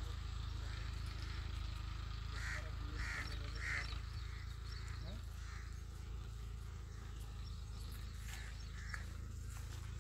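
Crows cawing: a quick run of three caws about two and a half seconds in, with fainter calls later, over a steady low rumble.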